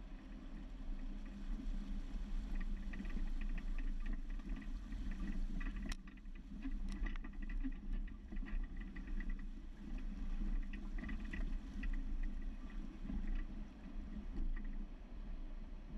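Jeep's engine running at low revs as it fords a creek, with water sloshing and splashing around the wheels. A single sharp click about six seconds in.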